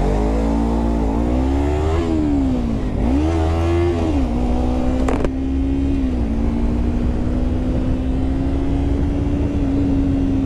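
Motorcycle engine accelerating through the gears, its pitch climbing and dropping at each upshift about two, three and four seconds in, then holding steady at cruising speed, over a low wind rumble.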